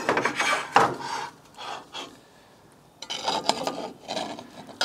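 Scraping and rubbing of a kitchen utensil and plate against a pan as a potato rösti is worked back into it. Two stretches of scraping with a short quiet pause between them.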